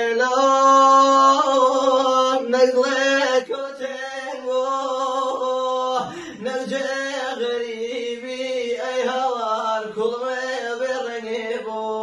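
Background music: a male voice singing a slow, drawn-out chant-like melody over a steady low drone.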